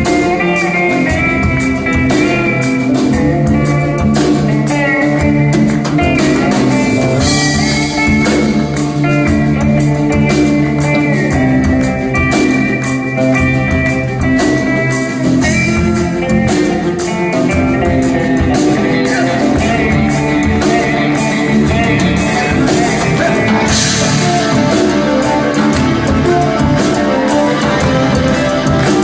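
Rock music with electric guitar and drum kit, playing steadily at a loud level.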